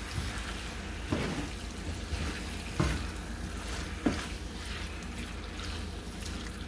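Chicken, peppers and onions frying in a pan with a steady sizzle. A utensil knocks against the pan three times as the food is stirred.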